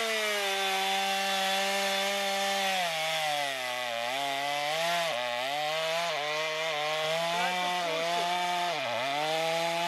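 Stihl two-stroke chainsaw running at high revs, then bogging down as its dull chain is pressed into a log. From about three seconds in the engine pitch sags and dips again and again, with deep dips around four, five and nine seconds, as the blunt chain sticks in the wood.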